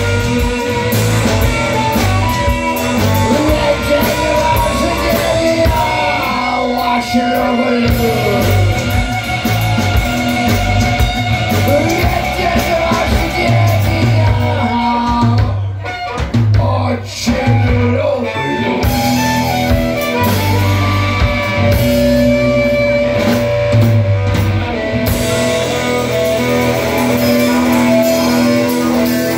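Live rock band playing: electric guitars over a drum kit and hand drums with a shaken tambourine, and a harmonica carrying the melody.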